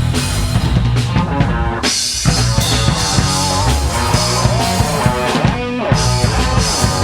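Rock band playing live in a rehearsal room: drum kit, electric guitars and bass in an instrumental passage without singing, with a short break about two seconds in before the band comes back in.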